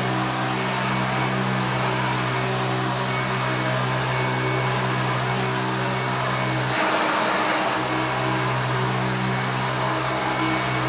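Hoover Elite 350 upright vacuum cleaner running steadily, a motor hum over the rush of air. About seven seconds in the hum briefly drops away and the rushing air grows louder for about a second before it settles back.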